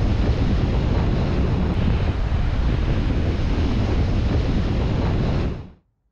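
Wind buffeting a GoPro camera's microphone, with a heavy low rumble over the rush of breaking ocean surf. It fades out quickly near the end.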